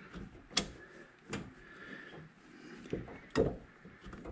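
Four short, sharp clicks and knocks as parts are handled by hand under the hood, the loudest near the end.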